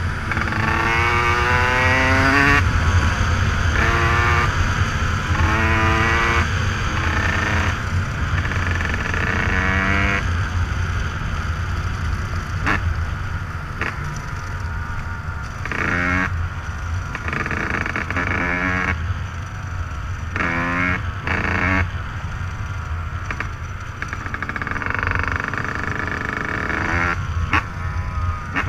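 Dirt bike engine revving up and dropping off again and again as it is ridden, the pitch climbing in runs of a second or two and breaking off between them.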